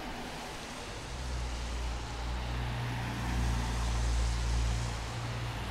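A motor vehicle's engine passing close by: a low hum that grows louder over the first few seconds and eases off near the end, over steady street noise.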